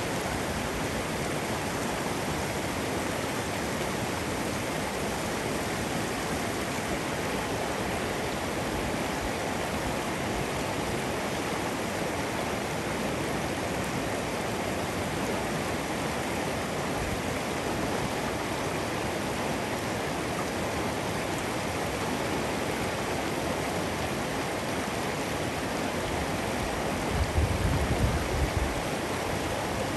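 Snow-melt mountain stream rushing steadily, with a brief low rumble near the end.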